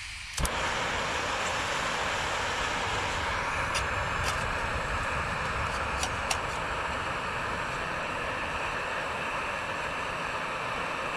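Backpacking gas canister stove lighting with a click about half a second in, then its burner hissing steadily at full flame to bring water to the boil. A few light clinks come as the pot is set on the burner.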